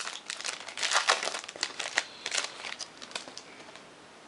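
Foil baseball card pack wrapper being handled and torn open: a rapid crackling crinkle for about three seconds that thins out and stops.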